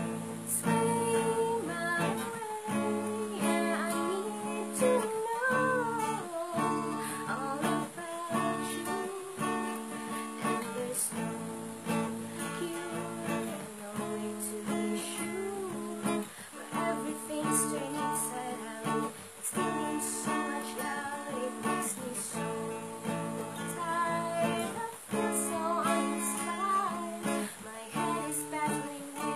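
A woman singing in phrases to her own Yamaha acoustic guitar, which she plays steadily throughout.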